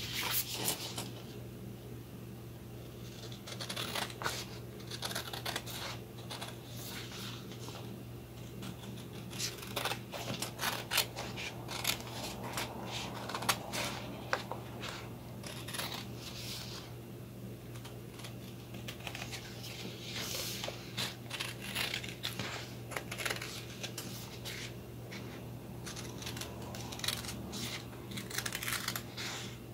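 Scissors snipping around a printed design on a sheet of heat transfer paper, many short irregular cuts with the paper rustling as it is turned. A steady low hum runs underneath.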